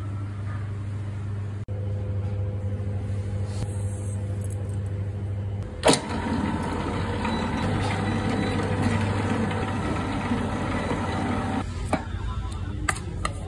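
Electric stand mixer running with a steady motor hum. From about six seconds in, its dough hook churns flour and dough in a steel bowl, adding a rough, grainy sound, with a few light knocks near the end.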